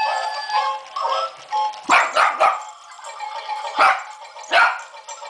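A small dog barks five times: three quick barks about two seconds in, then two more spaced about a second apart. Under and before the barks, a battery-operated plush toy chicken plays an electronic tune.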